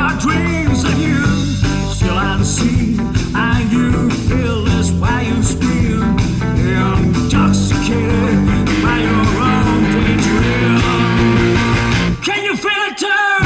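Instrumental passage of a rock song: sustained bass and band backing under a lead line whose notes bend and glide, typical of lead guitar. About twelve seconds in, the low end drops out for a moment, leaving the bending lead line alone.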